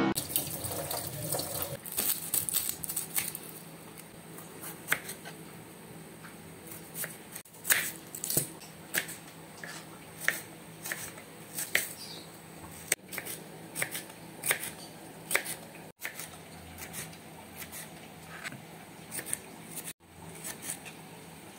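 A kitchen knife slicing onion and tomato on a plastic cutting board: separate crisp cuts and taps of the blade on the board, mostly about a second apart.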